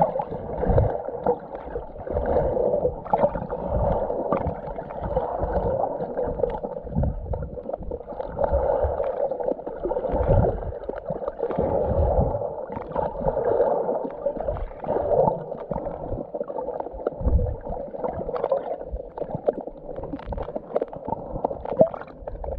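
Muffled water sounds heard underwater while snorkelling: sloshing and gurgling that swell and fade every second or two, with irregular low knocks.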